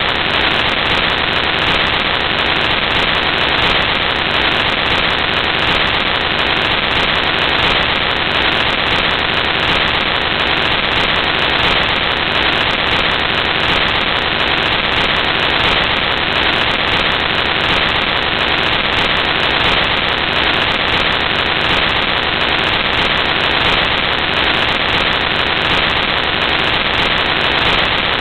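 Loud, steady static hiss with no change or rhythm: a fault in the recording's sound that covers everything else.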